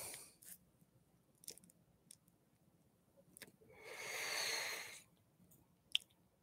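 A person smoking a joint: a soft breath at the start, then a long exhale of smoke about four seconds in. Small mouth clicks and lip smacks fall between, with one sharper click near the end.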